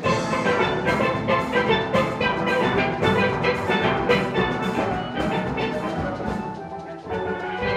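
Instrumental background music with a steady beat and pitched percussion.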